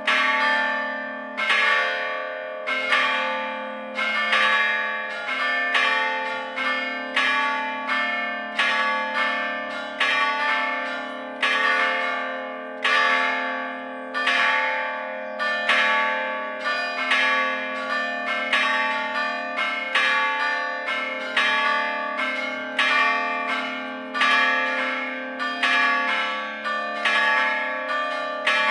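Full peal of four church bells from the Gescher foundry, struck by hammers rather than swung. The strikes come thick and unevenly spaced, overlapping one another, each ringing on and fading before the next.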